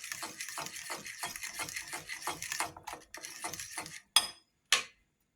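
A utensil stirring wet banana bread batter (mashed banana, egg, vanilla and milk) in a bowl, scraping in quick, even strokes of about three a second. Near the end come two sharp clicks about half a second apart.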